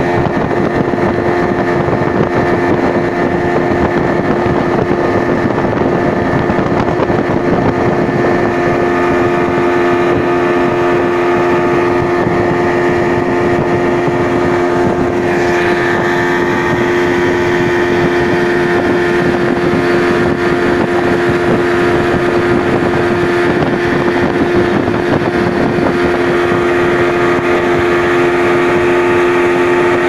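Yamaha 115 outboard motor running at a steady high speed, pushing a speedboat, with water rushing and spraying along the hull.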